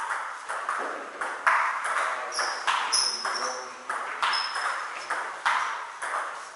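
Table tennis rally: the celluloid ball clicking off the bats and the table in a quick, even back-and-forth, several hits a second.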